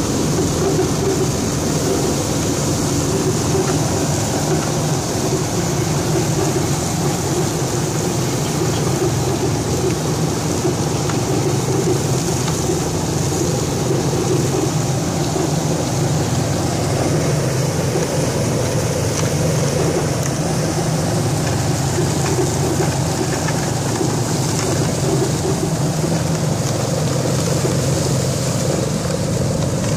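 Truck-mounted asphalt spreader at work: the Volvo truck's diesel engine and the spreader's conveyor running steadily, with a rushing hiss as asphalt pours off the conveyor into the spreading box.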